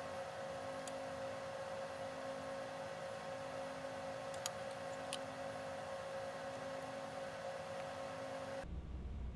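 Steady electrical hum with a high hiss, starting and stopping abruptly, with a few faint clicks, the sharpest about four and a half seconds in.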